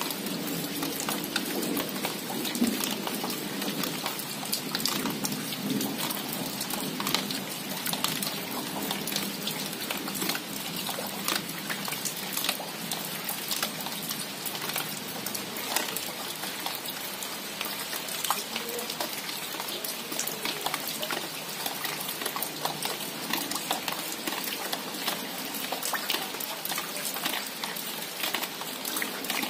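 Steady rain: an even hiss dotted with many separate drops ticking sharply close by.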